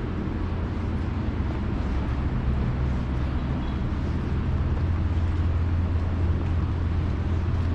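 Steady low, motor-like hum over a haze of outdoor city background noise, the hum growing a little stronger about five seconds in.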